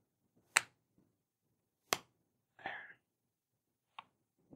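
Sharp clicks as the metal back and plastic front of a 3rd-generation iPod's case are pressed and snapped together, three clicks over a few seconds, with a short scrape between the second and third.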